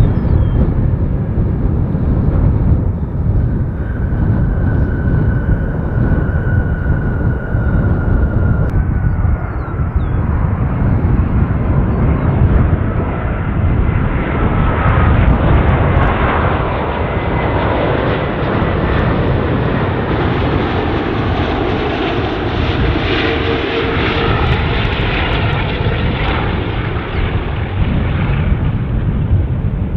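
Jet airliner passing low on its landing approach: a loud rumbling engine noise with whining tones that fall in pitch as it goes by, louder in the second half.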